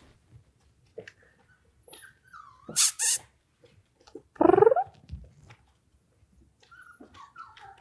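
Five-week-old German Shorthaired Pointer puppies whining and whimpering in thin, wavering high cries, with one loud rising yelp about halfway through. A short hissing noise comes about three seconds in.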